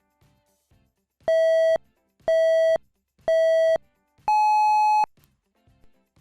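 Electronic countdown beeps: three short beeps of the same pitch about a second apart, then one longer, higher-pitched beep that marks the start.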